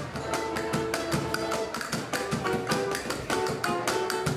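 Acoustic guitar playing live, strummed in a quick, even rhythm with plucked notes.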